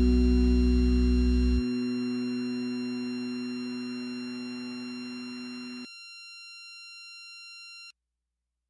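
Final held chord of a rock song ringing out as steady sustained tones that slowly fade. The low notes cut off about a second and a half in, most of the rest a few seconds later, and the last high tones stop abruptly near the end.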